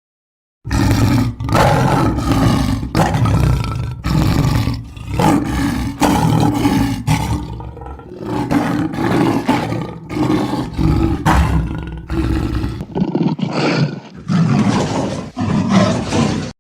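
Lion roaring: a long series of loud, rough roars and grunts in quick succession, about one to two a second, starting about half a second in.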